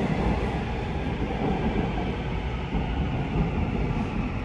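Seoul Subway Line 2 train heard from inside the passenger car: a steady rumble of wheels on rail and running noise, with no distinct events.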